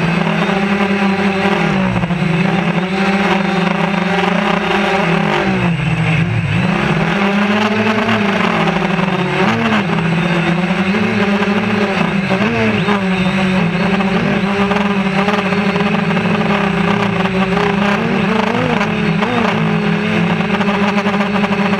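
Quadcopter drone's electric motors and propellers whirring, heard from the camera on board, the pitch rising and dipping as the drone holds and shifts position.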